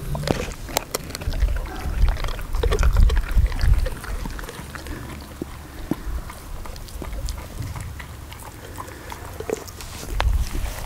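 A large dog chewing and gnawing a scrap of raw meat and sinew from a pig's head, with many short wet crunching clicks. Loud low rumbling thuds come between about one and a half and four seconds in, and again near the end.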